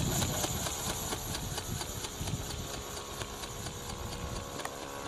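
Radio-controlled ornithopter's motor and wing-flapping drive running, a steady mechanical whirr with a fast regular beat, fading as the model flies away.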